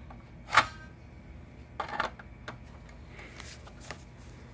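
Sharp clicks and clacks of a fire alarm pull station being handled, the loudest about half a second in and two more about two seconds in. The station has failed to activate, so no alarm sounds.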